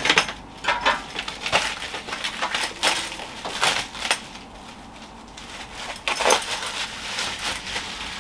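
Clear plastic packaging crinkling and rustling as it is cut open and pulled off a metal flue clamping band, with irregular crackles and clicks.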